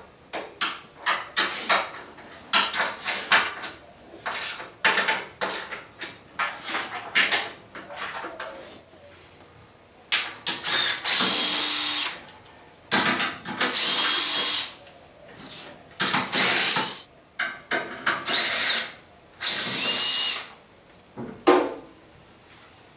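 Cordless drill/driver unscrewing the fasteners that hold an old table-saw fence guide rail. It runs in five or six bursts of a second or two, its whine rising in pitch within some of them. These follow a first half of short sharp clicks and knocks of metal being handled.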